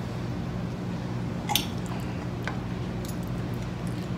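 A steady low hum, with one light click about a second and a half in and a fainter tick about a second later.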